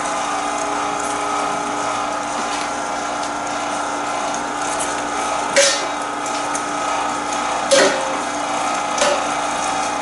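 Cabela's Carnivore 3/4 HP commercial-grade electric meat grinder running steadily under load, its motor whining while it grinds raw meat fed in with a plunger. Two sharp knocks come about halfway through, and a smaller one near the end.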